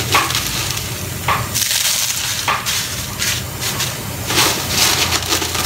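Thin, dry gersan flatbread being broken by hand and dropped into a pot, crackling and rustling in irregular bursts over a steady low hum.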